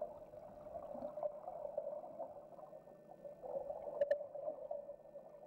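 Muffled, low gurgling of flowing river water heard from underwater, with one short sharp click about four seconds in.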